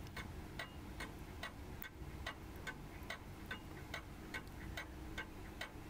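Fusee dial clock movement ticking evenly, about three ticks a second: the escapement beating steadily, the movement running well on its re-toothed great wheel.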